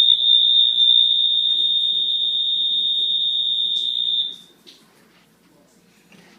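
Doorbell alert for deaf guests sounding one long, loud, high-pitched electronic buzzer tone for about four seconds, then stopping.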